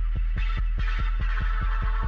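Electronic music with a fast, even pulse of about six beats a second under held synth tones, and a short hissing swell about half a second in.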